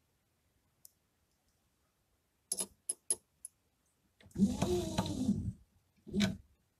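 The extruder carriage of a Prusa-style 3D printer pushed by hand along its X-axis rods, turning the stepper motor through the belt: a rattling, whirring slide whose pitch rises and falls with the speed of the push, then a shorter push near the end. A few light clicks come a little before it.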